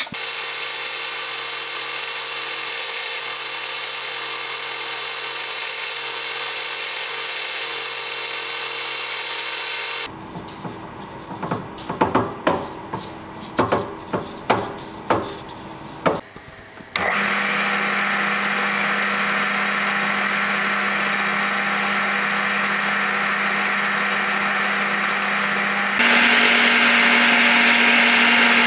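Benchtop drill press running steadily, spinning a brass guard blank chucked on a bolt to be turned and polished. About ten seconds in the steady sound gives way to several sharp taps and clicks for some seconds. Then the press runs again, louder and slightly higher in pitch for the last few seconds.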